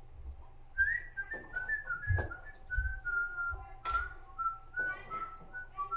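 A person whistling a tune, a string of short held notes that wander gradually lower in pitch, starting about a second in. A few sharp clicks and knocks of handling are heard under it.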